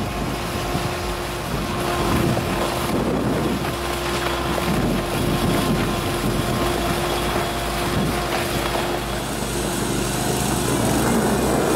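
Wilcraft amphibious ATV's 26.5 hp engine running steadily as the vehicle drives through icy water, its wheels churning and splashing the water.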